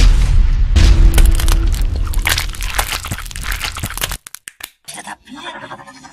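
Exaggerated bone-cracking sound effects: a dense run of loud cracks and crunches for about four seconds, then a few scattered separate cracks.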